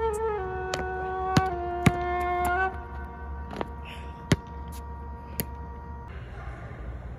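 Background music: a slow melody of long held notes on a flute-like wind instrument, fading out about three seconds in. A few sharp knocks are scattered through it.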